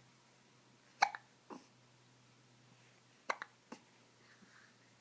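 A person hiccuping: two sharp hiccups, about a second and about three seconds in, each followed by a softer short catch of breath within half a second.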